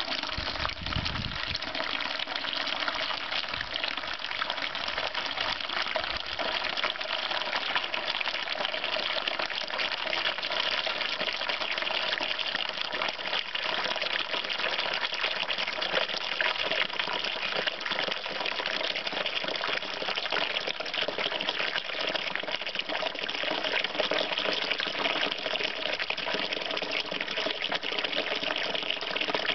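Water running steadily out of the open bottom tap of a 20-litre plastic drum as the drum drains.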